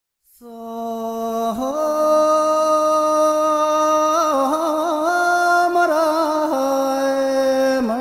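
A single voice singing unaccompanied in a chant-like style. It holds long steady notes and moves between them with short warbling ornaments, beginning about half a second in.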